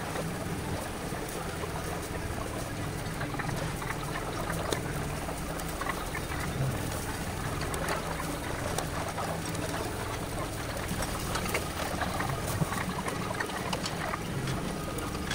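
Chicken pieces sizzling and crackling on the wire mesh of a tabletop yakiniku grill, with occasional light clicks of metal tongs, over a steady low hum.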